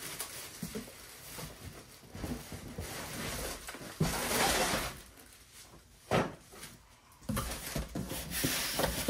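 Plastic wrapping crinkling and a cardboard box rubbing and scraping as a wrapped pressure washer is lifted out and set down, in several bursts of handling noise with a short knock about six seconds in.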